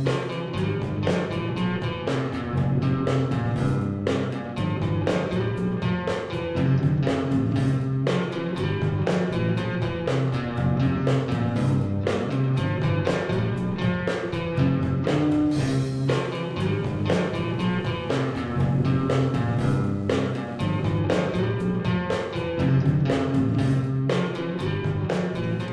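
Rock or blues-style music with a guitar and a steady drum beat.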